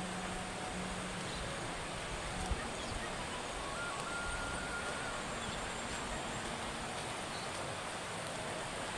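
Steady outdoor background hiss with a faint low hum, and a single soft bump about two and a half seconds in.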